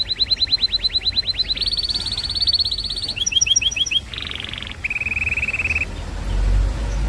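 Domestic canary singing in rapid tours, each a run of identical notes repeated many times a second before switching abruptly to the next: fast rising notes, a steady high trill, short clipped phrases, a harsh buzzy burst and a lower trill. Near the end the song stops and a low rumble rises.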